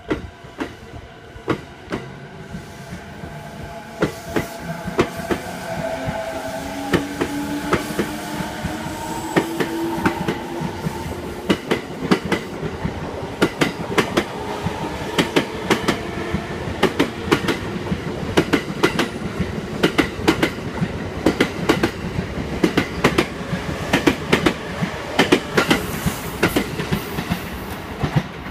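E217 series electric commuter train pulling out of the station: the traction motors' whine rises in pitch over the first ten seconds or so, then the wheels click over the rail joints faster and faster as the cars pass.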